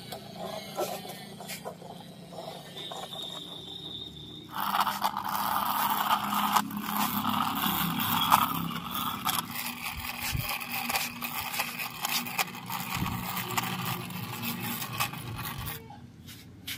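Hard plastic toy vehicle wheels rolling and scraping across a concrete floor as the toys are pushed by hand, with many small clicks and rattles. The scraping is fainter at first, gets much louder about four and a half seconds in, and drops off shortly before the end.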